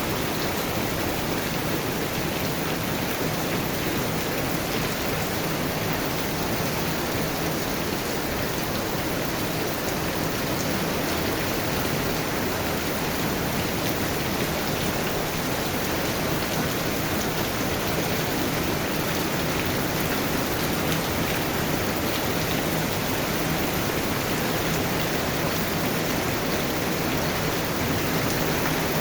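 Heavy rain falling in a steady downpour, an even hiss that holds at the same level throughout.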